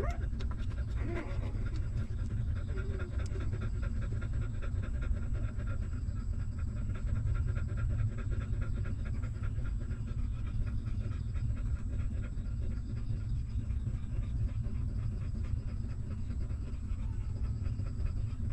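Mother dog panting quickly and steadily, over a constant low rumble.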